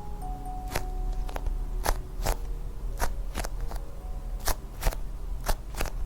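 Irregular sharp clicks and crackles, about one or two a second, from hands handling squishy toys and their plastic packaging, over a soft music-box tune.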